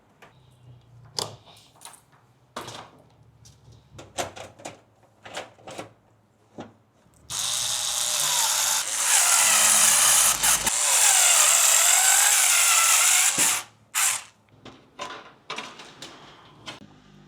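A small handheld power tool's motor runs for about six seconds with a wavering whine and a loud hiss. Before and after it come scattered clicks and taps of parts being handled.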